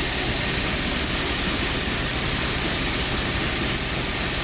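Steady din of grain-handling machinery as corn is unloaded: the grain auger carrying corn up into the wet bin, mixed with the grain dryer and a truck engine, with a thin high whine over a low rumble.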